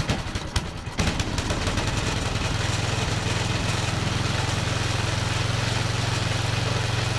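1979 John Deere 1032 snowblower's engine running, uneven for the first second, then steady with a fast even beat. The owner thinks the machine is hitting or rubbing something at the front, in the auger housing.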